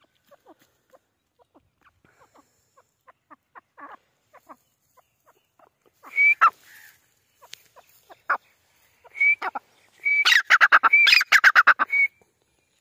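Grey francolin calling: soft short notes at first, then a loud shrill call about six seconds in and another about nine seconds in. These lead into a rapid run of loud repeated notes for about two seconds near the end.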